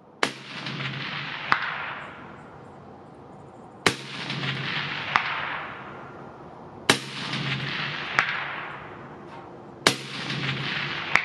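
Four single rifle shots from a short-barrelled rifle, about three seconds apart, each rolling off in a long echo. About a second and a quarter after each shot comes a faint ping: the bullet striking a distant steel target.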